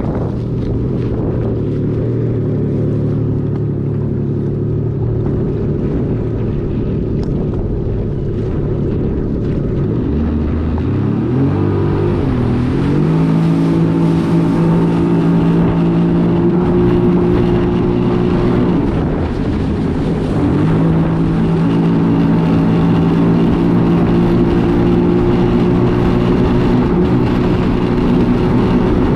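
Yamaha EX Sport WaveRunner's 1049cc three-cylinder four-stroke TR-1 engine running under way at a steady pitch. About ten seconds in it revs up to a higher steady pitch, eases off briefly around twenty seconds and comes back up. Water and wind noise run underneath.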